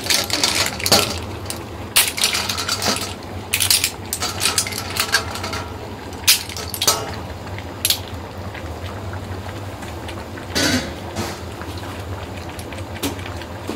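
Sweet clams (lamis) in their shells clattering against a stainless steel bowl and wok as they are scooped up by the handful and dropped onto the seafood. The clatter is dense for the first several seconds and thins out later, over a steady low hum.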